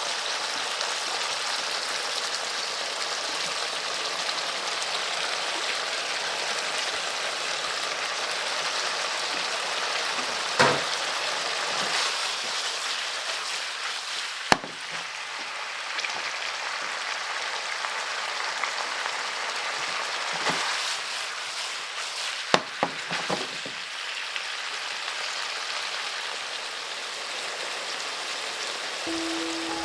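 Tofu and roast meat sizzling in a frying pan: a steady frying hiss, with a few sharp knocks about a third and three quarters of the way through.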